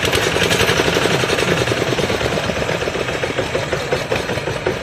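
Long-shaft outboard motor of a wooden boat running with a loud, rapid, steady clatter, its propeller lifted clear of the water. The motor has failed to push the boat along.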